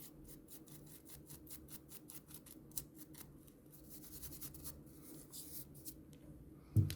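A fine-tipped toothbrush scrubbing dust out of an open iPhone 4S: bristles scratching in quick short strokes, about five a second, then slower, longer swishes in the second half.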